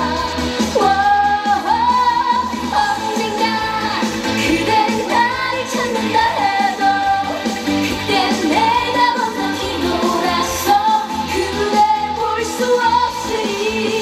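A young female singer singing an upbeat pop song live into a handheld microphone over a backing track, the melody holding and sliding between notes above a steady bass.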